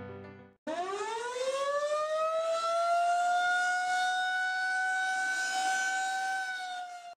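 Air-raid siren sound effect: a wail that cuts in suddenly about half a second in, climbs in pitch over a couple of seconds, then holds a steady pitch, dipping slightly just before it stops at the end.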